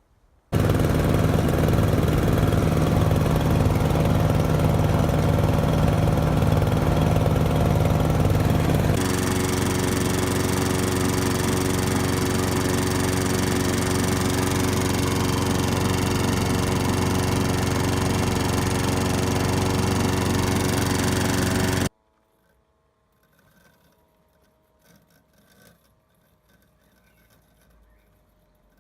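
Petrol lawn mower engines running one after the other for a noise comparison: first the ride-on mower's engine with a pulsing beat for about eight seconds, then, cut in abruptly, the smaller petrol walk-behind mower running steadily and slightly quieter. About two thirds of the way through it cuts to the Automower robot mower's much fainter electric whir.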